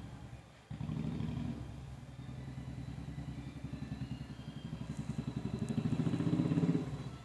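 An engine running with a fast, even throb, growing louder toward the end and then dropping off.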